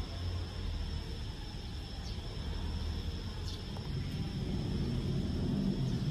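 Steady low rumble with a thin, constant high-pitched whine above it and a few faint ticks.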